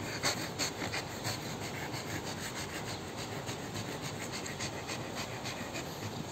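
American bully dog panting in quick, even breaths, about three a second, growing fainter in the later part.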